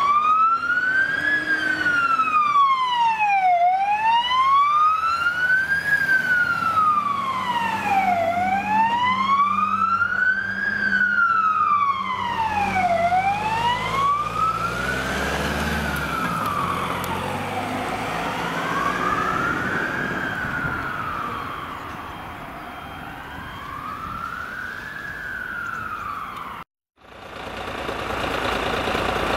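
Fire engine's electronic siren sounding a slow wail, rising and falling about every four and a half seconds, over the low rumble of the truck's diesel engine. Near the end it cuts off abruptly and a steady engine idle follows.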